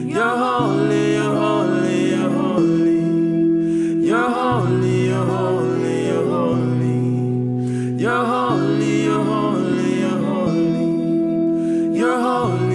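Slow worship music: sustained keyboard-pad chords that change about every four seconds, with a sung melodic phrase rising over each chord change.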